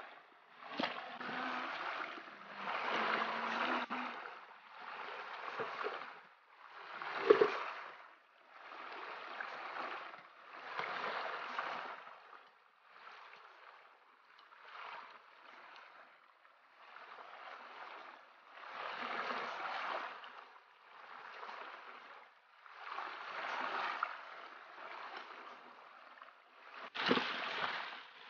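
Water sloshing and splashing in repeated washes, one every one to two seconds, as a plastic bucket is dipped and swirled in a shallow stream. A knock comes about seven seconds in and a sharper knock near the end.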